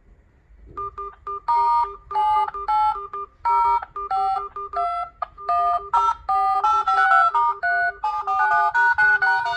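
A Samsung Galaxy smartphone playing an electronic ringing melody: short beeping notes over a repeating low note, starting just under a second in and coming thicker after about six seconds.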